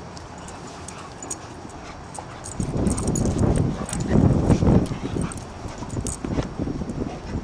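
Several dogs play-wrestling, with scuffling and dog noises that swell loudest for about two seconds in the middle, amid scattered light clicks.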